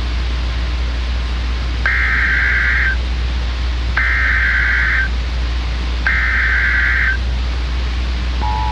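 Emergency Alert System SAME header: three bursts of warbling digital data tones, each about a second long and about a second apart, over a steady hum and hiss. Near the end the two-tone EAS attention signal starts, the sign that an emergency alert broadcast is beginning.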